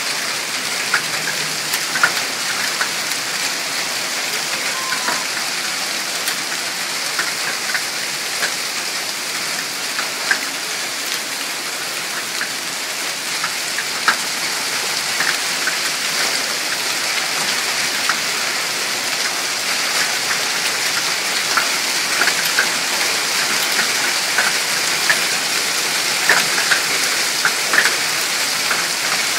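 Hail pelting down: a steady heavy hiss of falling hail and rain on the pavement, with scattered sharp clicks of individual hailstones striking hard surfaces.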